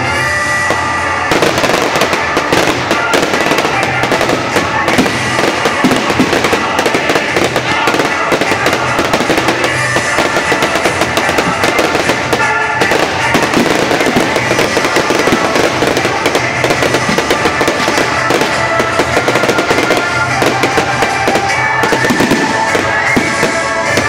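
Fireworks display: a dense, rapid run of crackling and banging from bursting shells and ground fountains, starting about a second in, over show music.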